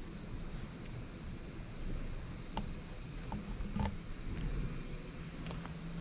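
Steady high-pitched drone of insects in the vegetation, rising a step in pitch about a second in, over a low rumbling outdoor background, with a few faint short clicks.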